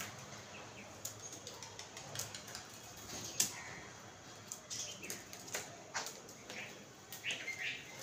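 Babblers feeding on a tabletop: wing flutters as birds land and shift about, scattered sharp taps of beaks pecking grain off the hard surface, and a few brief bird calls near the end.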